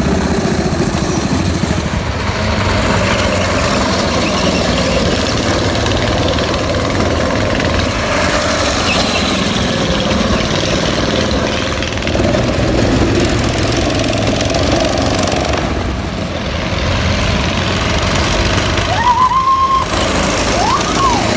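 Small petrol go-kart engines running steadily as the karts drive laps on the track. Near the end come two brief rising whines.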